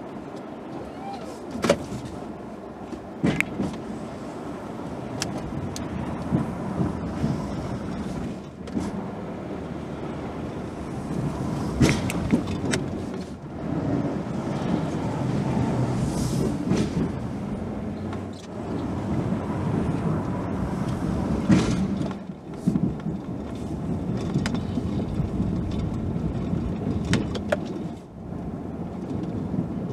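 Steady engine rumble heard from inside a pickup's cab, broken by occasional sharp knocks.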